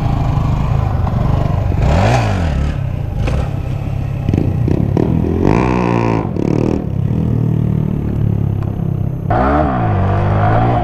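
Honda Grom's 125 cc single-cylinder engine running under way, revved in three quick throttle blips, the middle one a longer climb, as the rider pumps the throttle practising wheelies.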